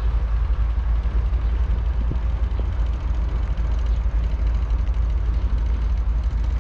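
Wind rumbling on the microphone over the low running of a Ferromex diesel locomotive in the distance, moving away.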